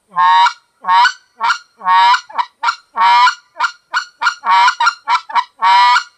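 Short-reed goose call blown to imitate a white-fronted goose: a string of about fifteen honking calls. Some are longer notes that start low and break up into a high cluck, mixed with short quick clucks. This is clucking alternated with the low note.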